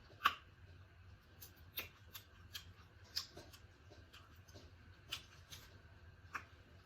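Close-up eating sounds of a seafood boil: a scatter of short, sharp clicks and crackles from shell and chewing, irregularly spaced, the loudest about a quarter second in.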